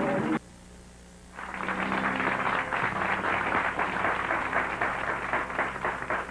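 Studio audience applauding, starting about a second and a half in. A short tail of guitar music cuts off just before it.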